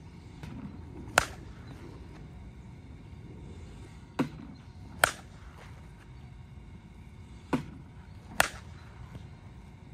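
Monsta Torch Hulk Platinum slowpitch softball bat striking softballs: three sharp cracks about three to four seconds apart, the first the loudest. Each of the last two cracks comes less than a second after a duller thump.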